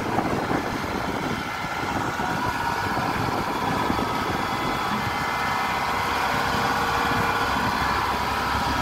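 Kubota DC-68G combine harvester's diesel engine running steadily as the tracked machine drives up onto a truck bed.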